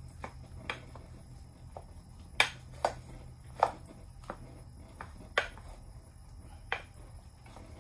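Wooden spatula knocking against a bowl while stirring and breaking up leftover cooked rice: about half a dozen sharp knocks at irregular intervals, with fainter scrapes between them, over a low steady hum.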